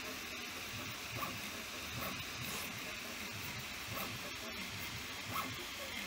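3D printer running: a steady fan hiss, with a few short, faint sounds of the printer's motors moving every second or so.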